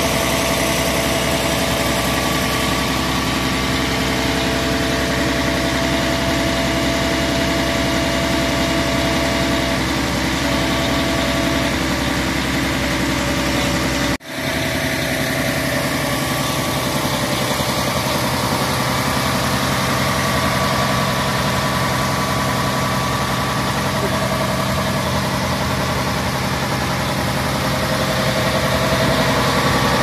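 Diesel engine of a Mercedes-Benz Actros truck-mounted concrete pump idling steadily, with a faint steady whine over it in the first ten seconds or so. The sound breaks off for an instant about 14 seconds in, then the idle carries on.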